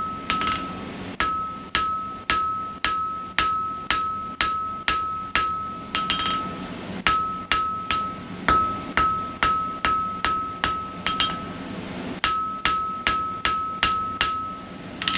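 Blacksmith's hammer striking a steel bar on an anvil at about two to three blows a second, each blow leaving a clear ringing tone that carries on until the next. The hammering stops briefly twice.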